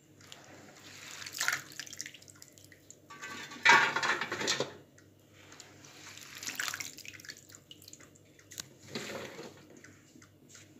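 Hands stirring and lifting cut green beans in a basin of water to rinse them: several separate sloshing, splashing surges, the loudest about four seconds in.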